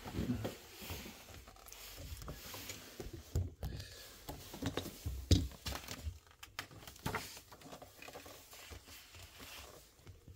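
Handling sounds: irregular light taps, knocks and soft rustling from hands working with objects, with one sharper knock about five seconds in.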